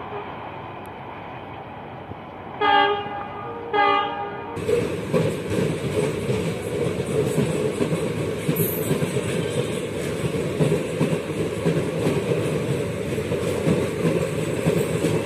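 A diesel-hauled passenger train running away from the listener, and a diesel locomotive horn sounding two short blasts about three and four seconds in. At about four and a half seconds the sound changes abruptly to coaches rolling past with a rhythmic clatter of wheels over rail joints.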